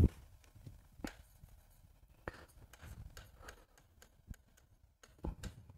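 Faint, scattered taps and light scratches of a stylus writing on an interactive smart-board screen, a few at a time with short gaps between them.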